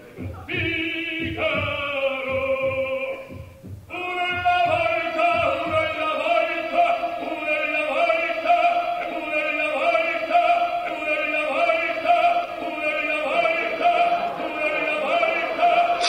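Recorded operatic singing with a wide vibrato, played as a stage sound effect. It breaks off briefly about three and a half seconds in and then carries on. A low pulsing heartbeat effect runs underneath, about two beats a second, and stops about six seconds in.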